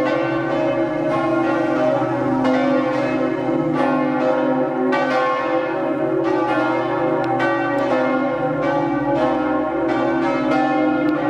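Church bells pealing for a wedding: several bells struck in quick succession, their ringing tones overlapping without a break.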